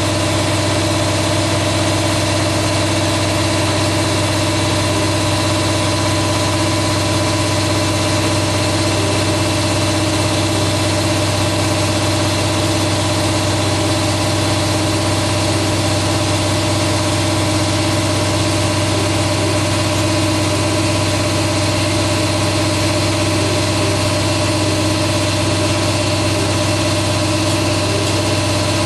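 Shop air compressor running steadily: a constant, loud mechanical drone with a low hum that does not change.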